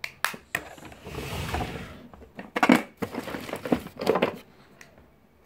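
Handling noise close to the microphone: a few clicks, then a stretch of rubbing, then several sharp knocks and clatters as makeup items and the phone are moved about, the loudest about two and a half seconds in.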